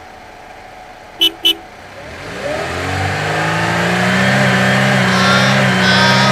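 Two short horn beeps about a second in, then a vehicle engine starting to rev, rising in pitch and then running steadily and loudly.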